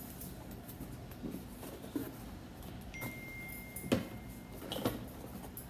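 Quiet handling of small objects and packaging: scattered light taps and rustles, with one sharper click about four seconds in. A faint, thin steady tone sounds for about two seconds in the middle.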